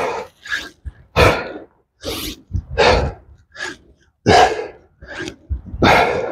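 A man breathing hard through a set of push-ups: short, forceful breaths, the strongest about every one and a half seconds, with fainter breaths between.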